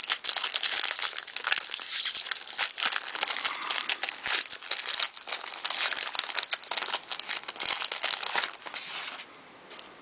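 Plastic-foil wrapping of baseball card packs crinkling and crackling as the packs are handled and pulled out of a jumbo box, with a little tearing. The crinkling stops abruptly near the end.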